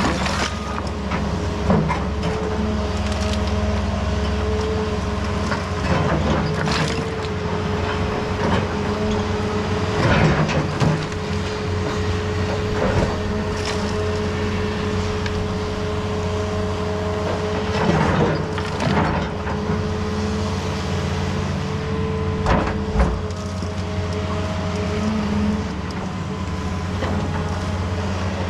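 Heavy diesel construction machinery running steadily with a constant high hum over the engine, broken a dozen or so times by sharp clanks and crashes of broken concrete being dug and dropped.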